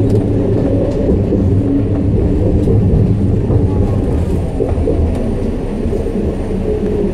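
Detroit People Mover train running along its elevated guideway, heard from on board: a steady low rumble of the car's steel wheels on the rails. It eases off a little near the end as the train comes alongside a station.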